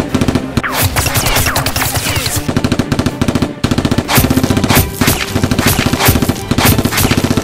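Bursts of rapid automatic gunfire dubbed over the toy-blaster fight, fast strings of shots with a short break about three and a half seconds in.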